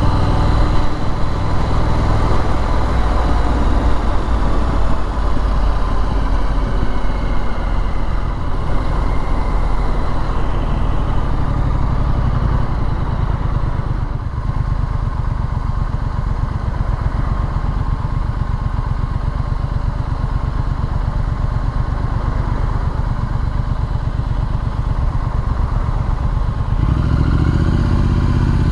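Triumph Street Scrambler's 900 cc parallel-twin engine running steadily as the motorcycle is ridden, rising in pitch near the end as it accelerates.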